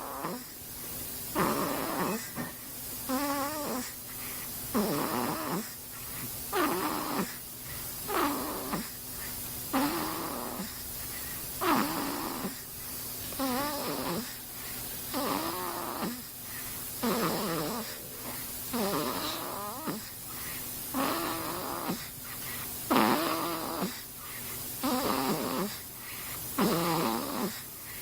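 Steady rhythmic snoring, one snore on each breath about every two seconds, with a wavering, slightly whistling pitch.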